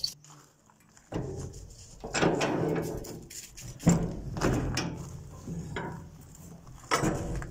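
Steel locking-bar handles on a shipping container's doors being lifted and swung, with metal scraping and creaking and a sharp clank about four seconds in and another near the end.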